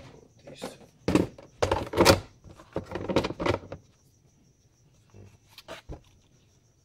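Clear plastic storage boxes being handled and moved: a quick run of plastic knocks and scrapes over a couple of seconds, then a few lighter clicks near the end.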